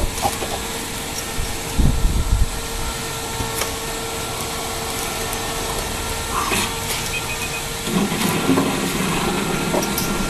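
Steady hiss with a faint constant hum, broken by a few soft knocks and rustles of handling on a workbench, which grow rougher and louder from about eight seconds in.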